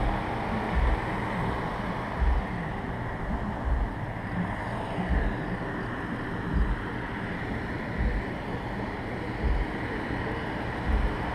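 Low bass thumps from two 12-inch Pioneer car subwoofers, heard from outside the car, coming roughly every one to one and a half seconds. Under them runs a steady hiss of wind noise on the microphone.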